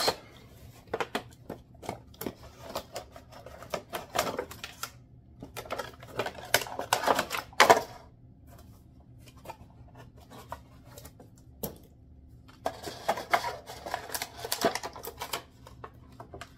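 Toy packaging being opened and handled: irregular clicks and knocks of cardboard and plastic, with stretches of rustling and crinkling.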